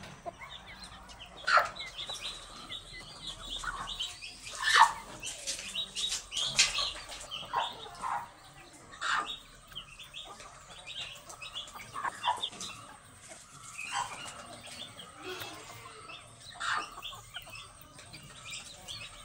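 A flock of chickens clucking while they forage, with sharp louder calls every few seconds over a steady patter of high chirps from the young birds.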